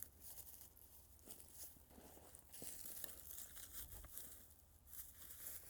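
Faint, irregular rustling and crackling, like dry leaves or brush being disturbed.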